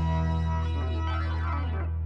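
Intro theme music: a held chord ringing on, with a quick run of notes over it about a second in, the chord slowly dying away.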